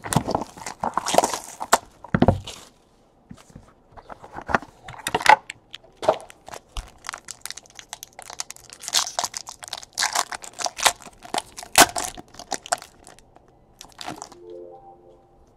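Hands tearing open and peeling apart the foil wrapper of a trading-card pack: irregular crinkling and tearing with many sharp crackles, busiest in the second half.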